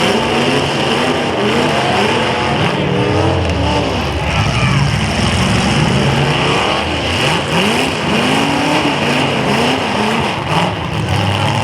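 Several demolition derby cars' engines running and revving together, their pitch repeatedly rising and falling.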